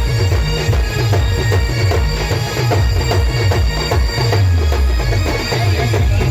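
Loud traditional band music: a sustained reed wind-instrument melody over heavy, repeating drum beats.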